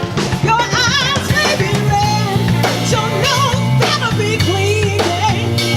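A band playing with a singer: a wavering, vibrato-laden vocal line over drums and steady bass notes.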